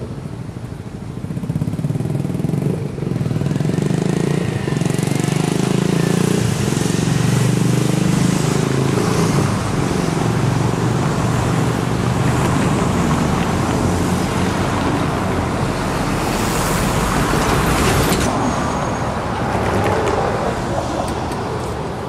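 Road traffic: cars and vans driving past over the tram tracks, a steady rush of engine and tyre noise that swells about two seconds in and eases near the end.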